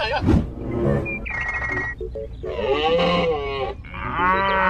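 A string of dubbed cartoon sound effects over background music: a knock just after the start, a short steady tone, a long call that rises and then falls, then a cow mooing near the end.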